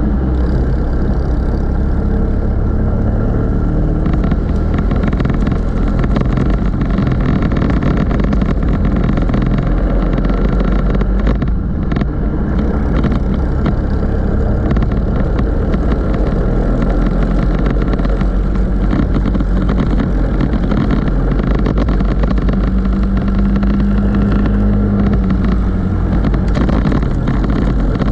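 Racing go-kart engines running hard at race pace, a steady loud engine note from the camera's own kart and the kart close ahead.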